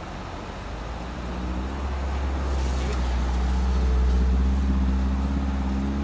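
A 4x4's engine running under load on snow. It grows louder and climbs slightly in pitch to a peak about two-thirds of the way through, then eases off a little.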